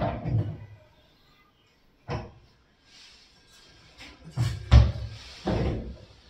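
Lift-up flap door of an aluminium-framed kitchen wall cabinet being worked open and shut by hand, giving several separate knocks and clunks: one at the start, one about two seconds in, and a close cluster near the end, the loudest among them.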